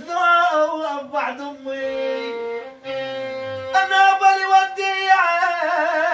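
Music: a man singing long, drawn-out notes with a wavering pitch in a Bedouin swihli song, over a melodic instrumental accompaniment.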